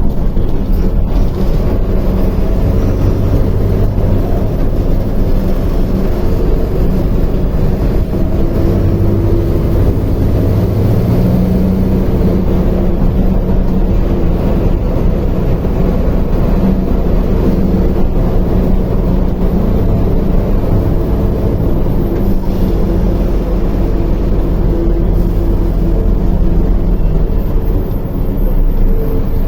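Mercedes-Benz OF-1721L bus's BlueTec 5 diesel engine running under way, its note rising and falling in pitch.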